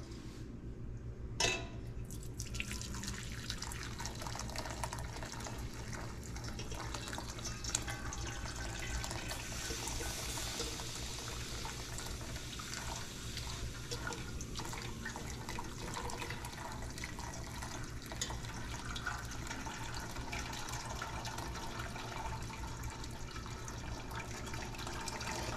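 Clam broth being poured through a paper-towel-lined strainer into a pot: a steady trickling stream of liquid. A single knock sounds about a second and a half in.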